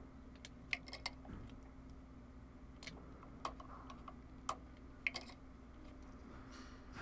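Scattered light clicks and taps of a flat wooden spatula and a table knife against a cast-iron skillet and a pot as mashed potato is spread over a pie, over a faint steady hum.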